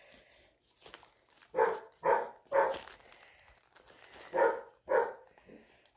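Dog barking five times: three quick barks in a row, then two more after a short pause.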